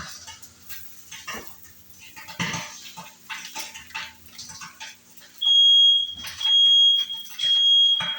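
Kitchen clatter of pans and utensils, then about five seconds in a smoke alarm goes off: a loud, high-pitched beep sounding three times in quick succession, set off by breakfast cooking. The owner says the detector goes off if you breathe on it.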